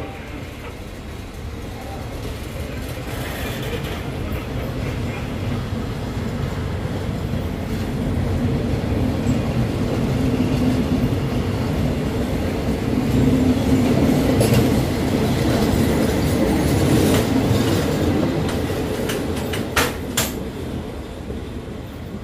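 Thai passenger train coaches rolling past while pulling out of the station, the wheels clattering over the rail joints. The noise grows steadily louder as the coaches go by, then fades as the last coach passes, with two sharp knocks near the end.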